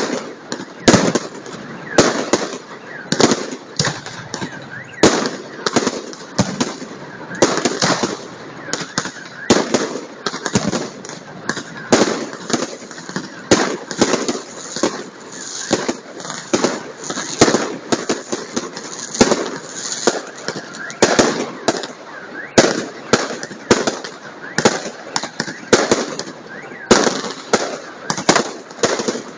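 Aerial fireworks bursting in the sky: a dense, unbroken run of bangs and crackles, several a second, going on without a pause.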